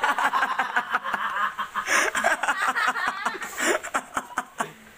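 A child snickering and giggling in quick, breathy bursts, trailing off near the end.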